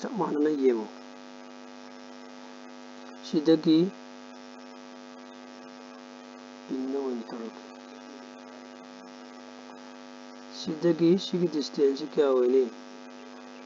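Steady electrical mains hum: a constant buzz made of many evenly spaced overtones, with the strongest low drone. A few short bursts of a voice break in over it, the longest near the end.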